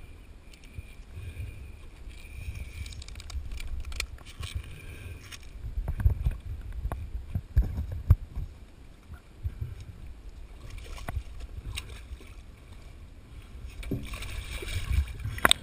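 Low, uneven rumble of wind and water lapping around a small boat's stern, with a few sharp knocks of gear being handled. Near the end comes a rise of splashing as a diver slips into the water.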